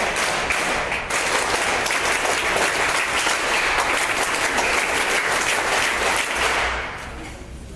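A large group applauding: dense, steady clapping from many hands, which dies away quickly near the end.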